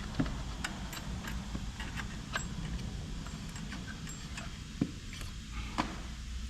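Irregular light metallic clicks and taps as tools and small shock-mounting hardware are handled, with two sharper knocks near the end, over a steady low hum.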